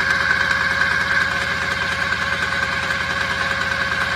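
Portable core drilling rig running steadily, its electric motor turning the drill rod in the hole, with a steady hum over a fast, even throb.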